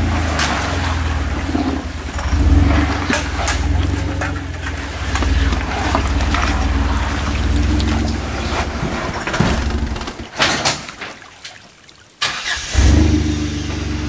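A Jeep Wrangler JK Unlimited's engine working under load as the rock crawler climbs a rock ledge. The engine rises and falls with the throttle, with scattered sharp knocks. About ten seconds in the engine sound drops away, then comes back suddenly about two seconds later.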